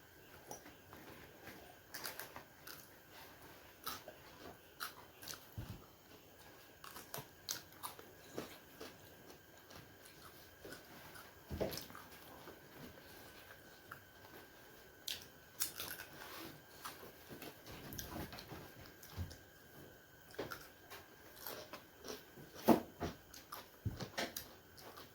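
Close-up eating sounds of momo dumplings being bitten and chewed, with many short, irregular mouth clicks and smacks. A faint steady high tone runs underneath.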